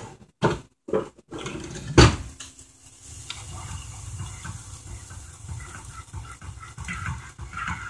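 Food frying in hot oil in a pan, a steady sizzle with small irregular crackles. A few light clicks and one sharp knock of cookware about two seconds in.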